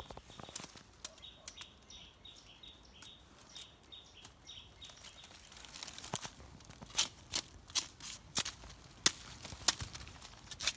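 Dry bamboo leaves crackling and sharp clicks and knocks from a machete being worked among freshly dug bamboo shoots, a dozen or so from about six seconds in. Before that, a faint run of short high bird chirps, about three a second.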